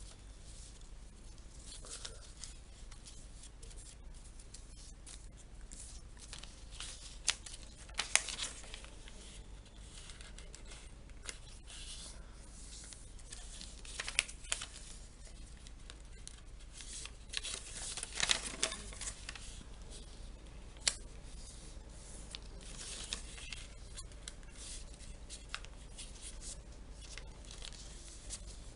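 Paper being cut with scissors and handled: irregular crisp snips and rustles with sharp clicks, busiest about a third, half and two-thirds of the way through.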